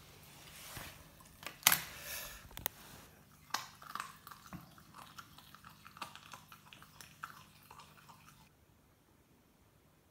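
Doberman puppy chewing and biting into a raw chicken carcass, irregular crunches of bone and wet bites of varying loudness that stop near the end.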